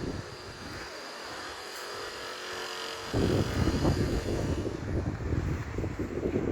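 A steady distant engine hum with faint steady tones. About three seconds in, wind starts buffeting the microphone in gusty low rumbles that cover it.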